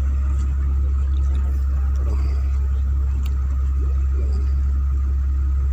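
Motorized outrigger boat's engine running with a steady low hum.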